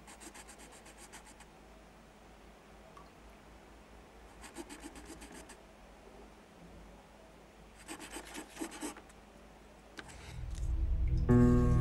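Crayon scribbling on paper in three short bursts of quick back-and-forth strokes. Music swells in near the end and then comes in loud.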